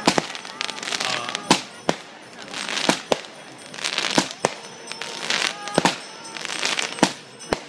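Fireworks going off: about ten sharp bangs of bursting aerial shells at uneven intervals, between stretches of hissing crackle from the sparks.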